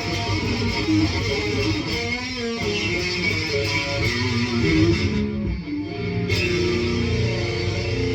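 Electric guitar played through an amp with overdrive, distortion and chorus pedals stacked, giving a heavy, dirty tone. It plays a run of sustained notes with a short lull about five and a half seconds in.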